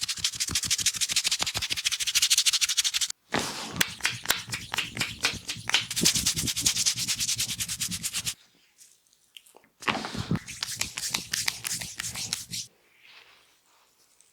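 Hands rubbing and slapping quickly on oiled skin during a neck massage, in rapid rhythmic strokes. The sound breaks off abruptly about three seconds in and again past the middle, with short gaps between bursts, then turns faint near the end.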